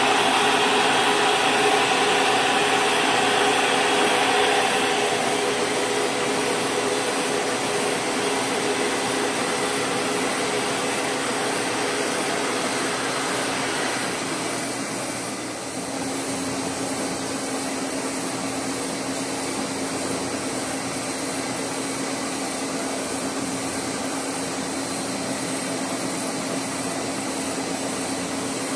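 Horizontal boring mill running steadily, giving a whirring machine noise. About halfway through the brighter, hissier part fades, leaving a steadier low hum.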